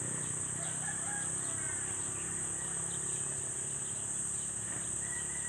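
Steady high-pitched insect chorus, with faint chicken calls over it.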